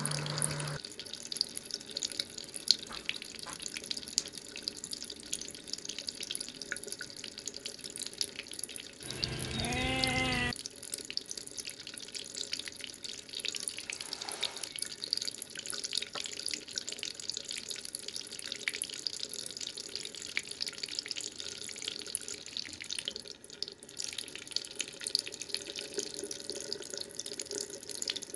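Splashing and dripping water from a person swimming breaststroke in a lake, with constant small splashes from the strokes. A brief cry is heard about ten seconds in.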